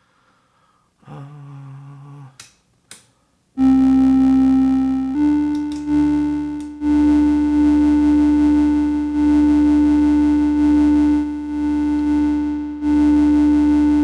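Electronic keyboard playing long held notes that change every second or two, loud from a few seconds in after a few quieter notes and two clicks, played as the plain sound without effects.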